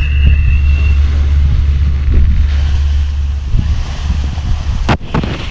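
Wind buffeting the microphone on an open boat at sea, a heavy low rumble over the wash of the water, easing a little past the middle. A single sharp knock comes near the end.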